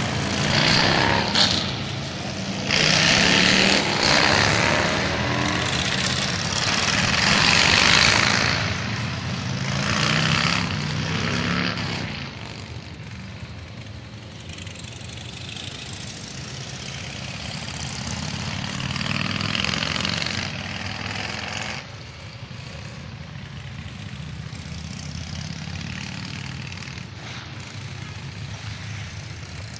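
Touring motorcycles riding past one after another, each engine rising and falling as it goes by. The sound is loudest in the first twelve seconds, then fainter and steadier as fewer bikes pass.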